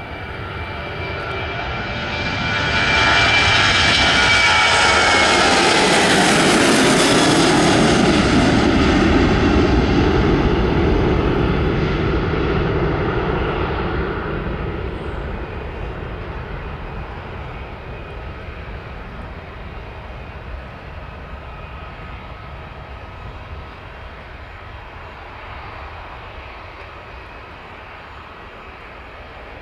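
A Boeing 737-700's twin CFM56-7B turbofan engines at takeoff thrust. The roar builds over the first few seconds as the jet rolls past, and a high whine falls in pitch as it goes by. The sound then slowly fades as the aircraft climbs away.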